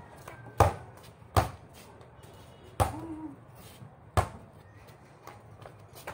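Basketball bouncing on a concrete court: four separate sharp thuds at uneven intervals.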